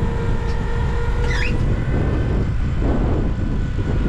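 Steady low rumble aboard a boat at sea, engine and wind together, with a thin steady whine over it and a short chirp about a second in.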